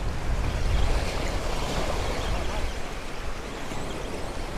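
Waves washing and breaking against the rocks of a jetty, a steady rushing surf, with wind rumbling on the microphone that is strongest in the first second.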